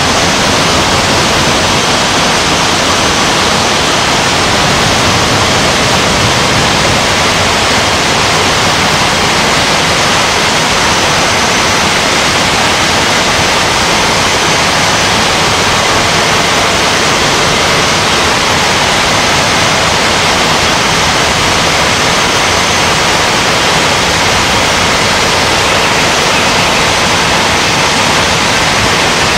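Steady, loud rushing noise of a blast furnace casting floor during tapping, with molten iron running from the taphole. It stays even throughout, with no distinct knocks or tones.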